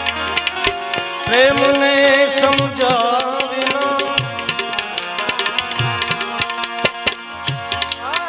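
Male folk singer holding long, wavering sung notes over a steady harmonium drone, with tabla strokes keeping an even beat. The voice comes in about a second in, fades about four seconds in, and comes back near the end.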